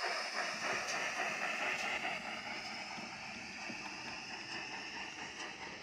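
OO gauge model steam tank locomotive running slowly along the layout track: a steady hiss with a few faint, irregular clicks.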